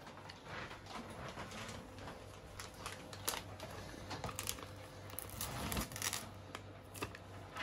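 A paper sachet of jam-setting powder crinkling and rustling as it is handled and opened, with a few sharp clicks scattered through.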